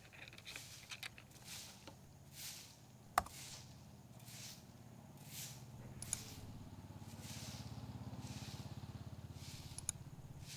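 Footsteps on a gritty surface, about one step a second, with a sharp click about three seconds in. A vehicle engine rumbles low in the background, swelling and fading over the second half.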